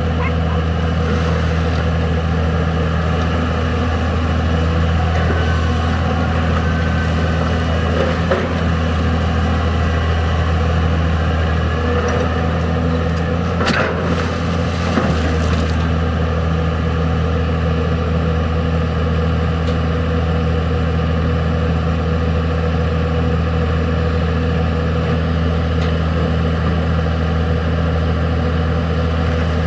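Diesel engine of a Komatsu PC200 long-arm excavator running steadily as the machine digs, with a short sharp knock about fourteen seconds in.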